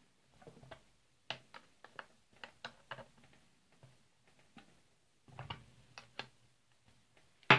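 Spanner clicking on the chainsaw's bar nuts as they are backed off half a turn: a quick run of sharp clicks, then another short cluster a few seconds later.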